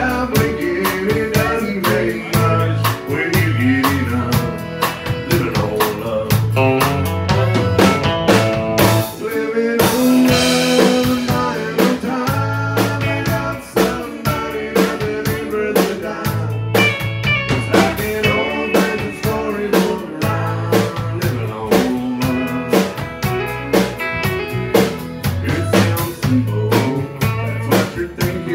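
A live country band playing a song, with acoustic guitar, electric bass, fiddle and drum kit.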